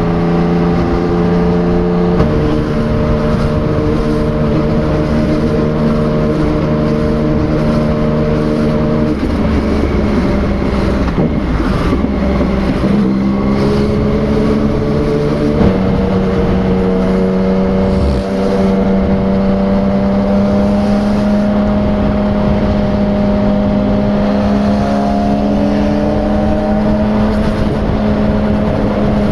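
Yamaha MT-09 three-cylinder engine running through an aftermarket replica Akrapovič exhaust, a steady drone at cruising speed. For several seconds partway through, the engine note drops away under a rushing noise, then picks back up and holds steady, rising slightly near the end.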